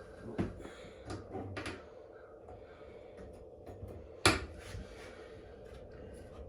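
A few light knocks and clatters of things being handled, with one sharp, loud knock about four seconds in, over a faint steady hum.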